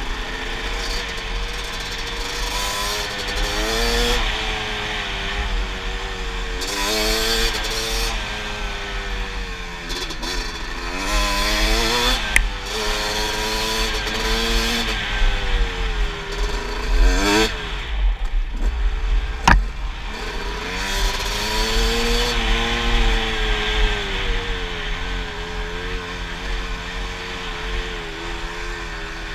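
Kawasaki dirt bike's engine heard from the rider's helmet camera, revving up and falling back again and again with the throttle while riding a trail, with wind buffeting the microphone. A sharp tick about 19 seconds in, just after the revs drop briefly.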